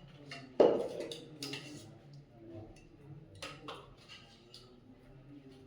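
Scattered sharp clicks and knocks, with one louder knock about half a second in, over a faint murmur of voices.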